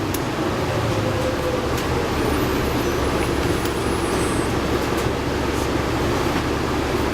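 Cabin sound of a 2011 New Flyer D60LFR articulated diesel bus, its Cummins ISL9 engine and Allison B500R transmission running steadily with rolling noise. Faint high tones come and go near the middle.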